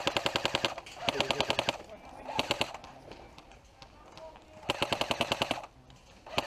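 Airsoft rifle firing on full auto in rapid clattering bursts: four bursts, the last of them a little before the end.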